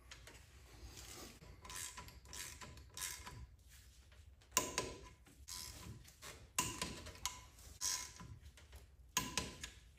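Intermittent clicks of a hand wrench tightening the bolts of a Ford F-150 front differential cover, one stroke every second or two, louder from about halfway through.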